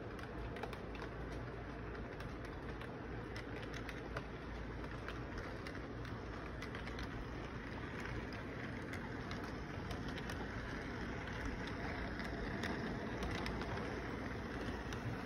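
Electric model train rolling along its track, a steady running noise with scattered small clicks from the wheels on the rails, getting somewhat louder about halfway through as the cars pass close by.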